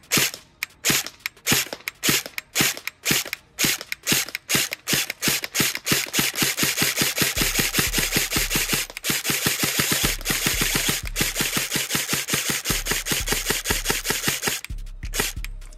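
Umarex HK416 low-power electric airsoft rifle firing: separate shots about two a second for the first six seconds, then a fast, continuous string of shots with a brief break about nine seconds in, stopping shortly before the end.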